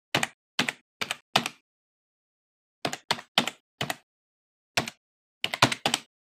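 Computer keyboard typing sound effect: about a dozen crisp keystroke clicks in uneven runs. Four quick clicks come first, then a pause, four more, a single click, and a fast run of four near the end.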